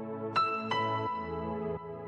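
Background music: sustained chords, with two new notes struck in the first second.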